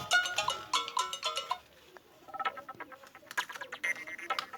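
Xiaomi phone ringtone: a quick melody of short notes stepping up and down that stops about a second and a half in, followed after a brief gap by a fainter, sparser run of notes and clicks.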